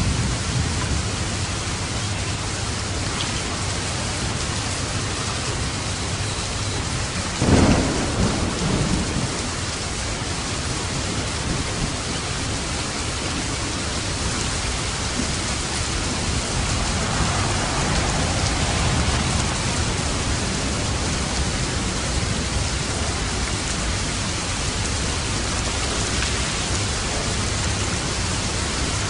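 Steady heavy rain with light thunder: a sharp thunderclap about seven seconds in, and a softer distant rumble a few seconds later.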